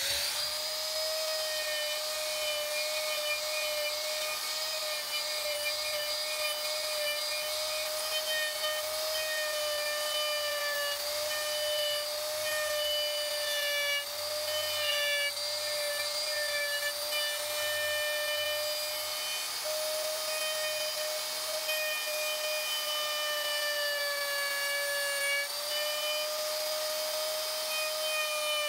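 Electric router with a straight bit running at high speed and cutting into wood: a steady high-pitched whine with a hiss of cutting over it, its pitch wavering slightly as the bit is guided through the carving.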